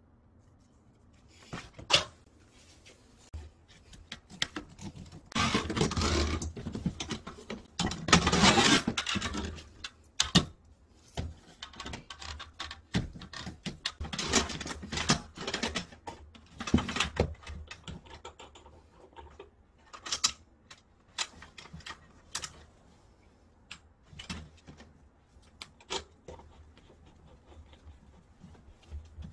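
Irregular clicks, taps and rustling from gloved hands bending corrugated metal flexible water-heater hoses and handling their brass fittings, with a denser stretch of scraping and crinkling about five to nine seconds in.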